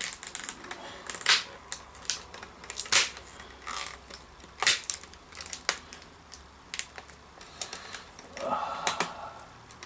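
Plastic laptop screen bezel being pried loose by hand: irregular sharp clicks and snaps, about one every one to two seconds, as its clips give way.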